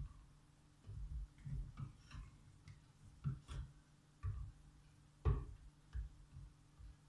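Irregular light knocks and clicks of items being handled, about a dozen spread unevenly, the loudest a little after five seconds in, over a faint steady low hum.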